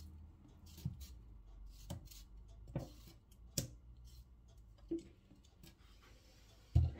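A kitchen knife cutting vegetables on a board: a few light, sharp clicks at irregular spacing, about one a second.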